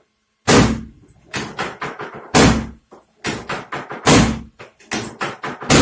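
Quick rhythmic thumping strikes in bursts of three or four, the bursts coming about once a second, every other burst opening with a heavier thump.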